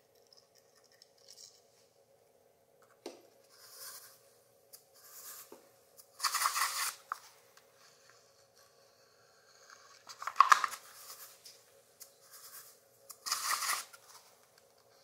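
Scratchy rustling and scraping of paper and sand being handled, coming in short spells, with three louder ones of about a second each, over a faint steady hum.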